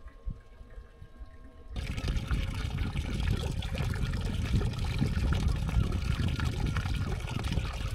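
Water lapping and trickling against the hull of a small drifting boat. It starts suddenly about two seconds in, after a near-quiet moment, then runs on steadily.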